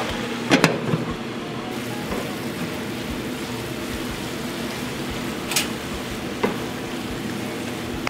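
Cabbage sizzling as it is stir-fried in a nonstick pan, stirred with a wooden spatula. A couple of sharp clinks about half a second in as the glass lid comes off, and a couple of knocks of the spatula against the pan later on.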